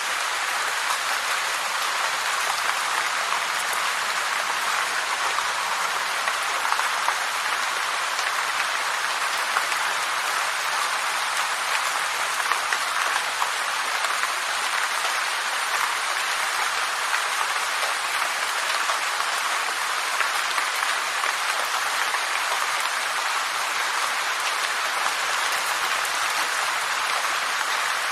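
Heavy rain falling steadily: a dense, even hiss of many drops, with small peaks scattered through it.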